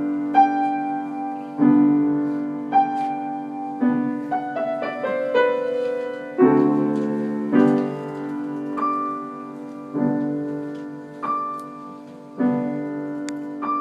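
Solo piano music: slow chords struck roughly once a second, each left to fade, with a quicker run of notes in the middle.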